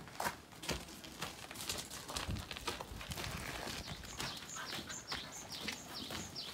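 Footsteps crunching on gravel. In the second half a bird calls in a quick series of short, falling chirps.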